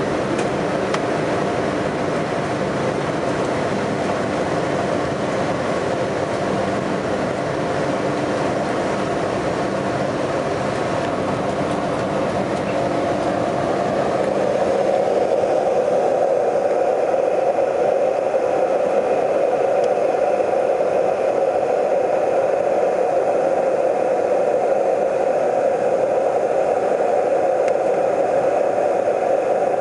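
Steady jet-engine and rushing-air noise inside an airliner cabin during the climb after takeoff. About halfway through it gets a little louder and duller.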